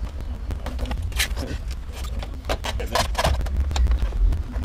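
Scattered clicks, knocks and scrapes of a plastic door panel being handled and pressed into place against the door, over a low steady rumble.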